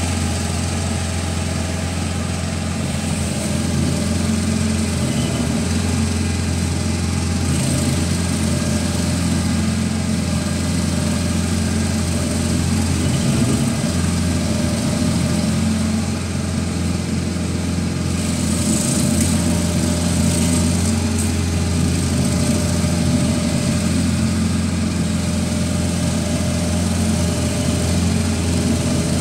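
Stump grinder's engine running steadily with a constant low hum.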